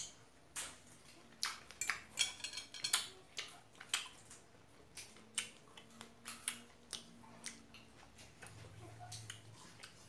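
A person chewing a mouthful of fresh strawberry close to the microphone: a quick run of short wet clicks and lip smacks, busiest in the first few seconds and thinning out toward the end.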